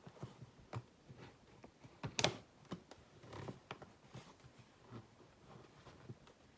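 Cardboard box being handled and opened by hand: faint scattered taps, clicks and rustles of cardboard, with one sharper click about two seconds in.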